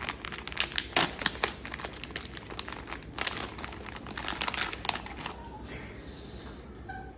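Glossy printed plastic blind-box wrapper crinkling and tearing as it is pulled open by hand: a dense run of crackles that dies down about five seconds in.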